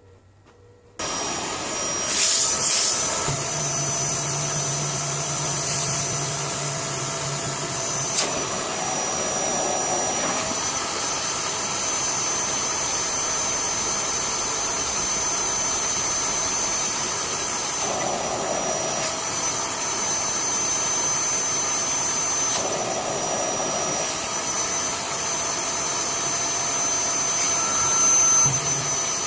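Vacuum cleaner switched on about a second in and running steadily with a high whine, sucking out a split-system air conditioner's blocked drain hose to clear it. Its sound changes several times as it runs.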